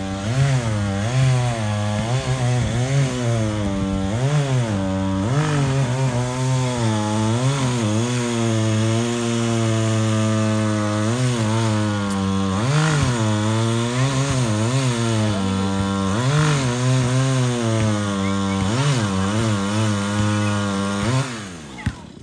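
Chainsaw running in tree cutting, its engine pitch rising and dropping again and again, then winding down and stopping near the end.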